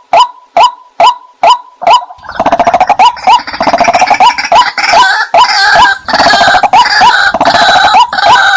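White-breasted waterhen calling: clipped 'kwak' notes about three a second, then from about two seconds in a denser, harsher run of overlapping calls that lasts until near the end, when the evenly spaced notes return.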